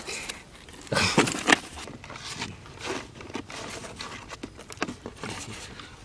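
Scuffling and rustling against cardboard as a hand grabs a green parrot in a box trap and draws it out. There is a harsh, noisy burst about a second in, then scattered scratches and clicks.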